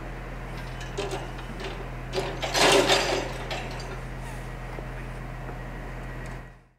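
Railway semaphore signal arm being raised from the stop to the clear position. A few clicks from the mechanism come first, then a louder clatter and creak about two and a half seconds in as the arm swings up, over a steady low hum.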